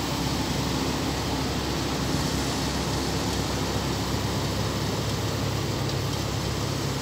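Steady low hum of a SEAT hatchback's engine at idle as the car creeps slowly into a parking space, over an even background hiss.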